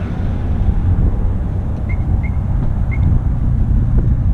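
Low, steady rumble of a stopped motorcycle's engine idling. Three short, high chirps sound about two and three seconds in.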